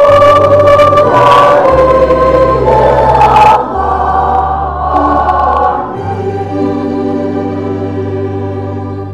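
Church choir singing a hymn with organ accompaniment, in long held chords over slow-changing bass notes. Partway through the singing thins out, and a held chord fades away toward the end.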